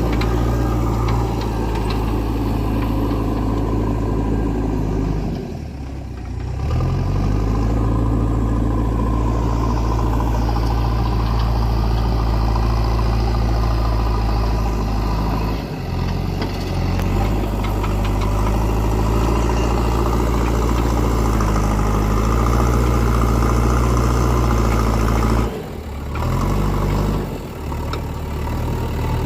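Diesel engine of a JCB 3DX backhoe loader running steadily, its low note dipping and shifting pitch briefly three times.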